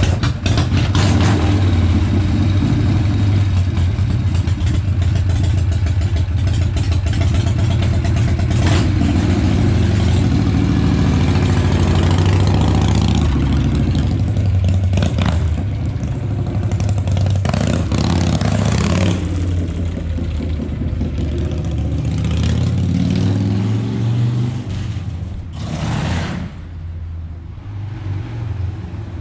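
1978 Harley-Davidson Shovelhead V-twin running on its rebuilt S&S Super E carburettor, loud and steady, with the revs rising and falling a few times past the middle.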